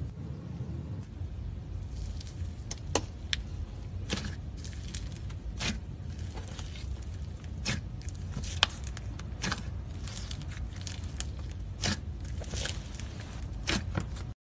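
Blue glitter slime being pressed and squished by fingers in a plastic tub: irregular sharp crackles and pops, a couple of dozen in all, over a steady low hum.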